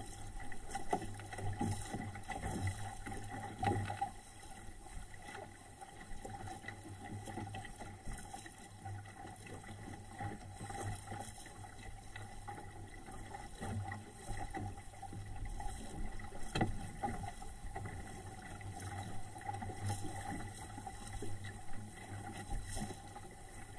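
Water rushing and splashing against the hull of a small SCAMP sailboat under sail, in irregular slaps and gurgles of the bow wave.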